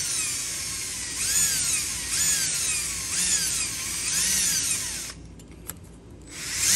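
Electric drill with a 3/16-inch bit drilling out an aluminum pop rivet, the motor speeding up and slowing down in pulses about once a second. It stops for about a second around five seconds in, then runs again near the end.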